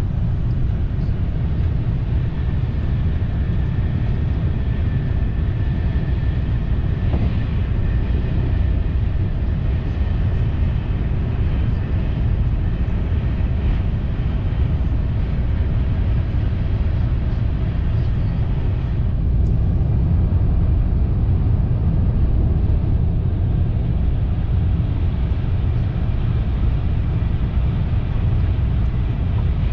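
Steady low rumble and rolling noise of a TGV Duplex high-speed train running at speed on the high-speed line, heard from inside the passenger cabin.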